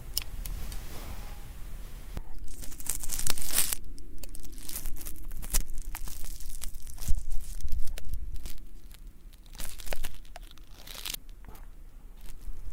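Ear pick scratching at hard, stubborn earwax close to the microphone's ear, with dense, irregular crackling scrapes and clicks that come louder at about two seconds in and again near the end.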